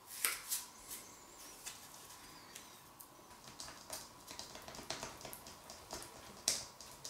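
Hand sanding: a small part rubbed back and forth on a sheet of sandpaper on a wooden workbench, giving uneven scratchy strokes, the sharpest about a quarter second in and near the end.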